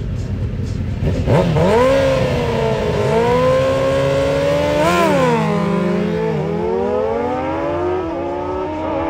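Two sport motorcycles, a Suzuki GSX-R600 and a Kawasaki ZXR750, with inline-four engines revving hard and accelerating away on a drag-strip launch. The engine pitch rises sharply after about a second, drops briefly a little past halfway, then climbs steadily.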